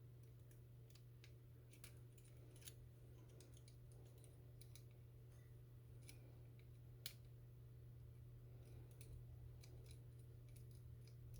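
Faint, scattered metallic clicks and ticks of a short hook pick working the pins of a Bovii dimple lockout-tagout padlock under tension, one sharper click about seven seconds in, over a steady low hum.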